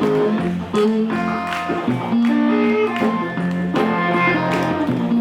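Live blues music: guitars playing an instrumental passage between the sung lines of the song, with plucked notes over a steady bass line.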